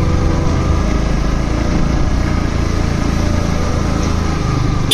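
Yamaha R15 V2's 150 cc single-cylinder engine running at steady revs while the bike is ridden.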